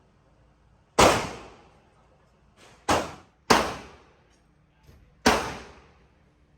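Four gunshots at uneven spacing, two of them close together near the middle, each dying away over about a second.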